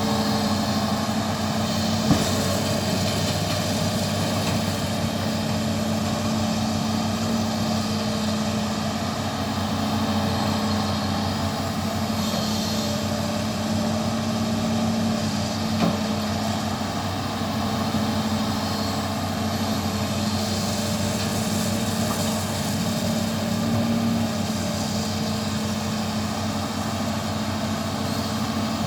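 Excavator's diesel engine running steadily, with two short sharp knocks, one about two seconds in and one about sixteen seconds in.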